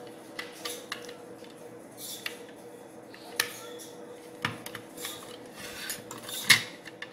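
Plastic clicking, clattering and rubbing as an external hard drive's plastic case is handled and its halves are pressed together over the disk, with the loudest snap near the end.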